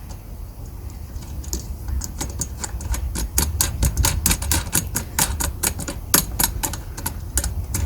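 A rapid run of sharp clicks as a handle fixing on a Flymo Easiglide 300 mower is screwed onto its bolt by hand, starting about a second and a half in and carrying on at several clicks a second.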